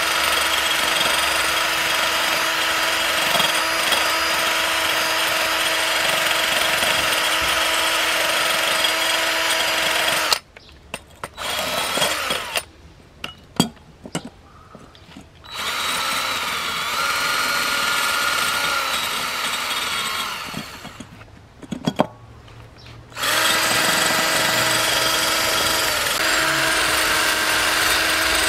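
Cordless drill spinning a small wire wheel brush against a car coolant pipe stub, scrubbing off calcium deposits: a steady motor whine with scraping. It stops about a third of the way in, gives a few short bursts, runs again at a different pitch, stops with a few clicks, then runs steadily again near the end.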